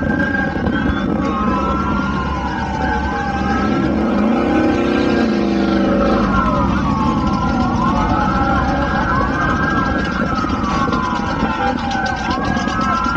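Several car engines running at once, with overlapping pitch glides sliding down and up as they change speed. One engine rises in pitch about four to six seconds in.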